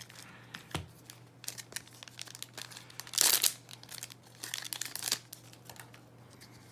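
Foil trading-card booster pack wrapper crinkling as it is handled, with a louder rip of the wrapper tearing open a little past three seconds in and another burst of crinkling about a second later.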